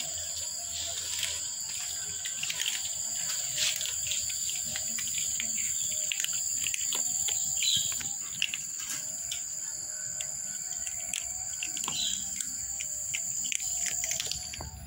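Several cats crunching dry kibble: a dense run of small, crisp crunches and clicks. Under it runs a steady high-pitched whine, and there are two short bird chirps, one a little past the middle and one near the end.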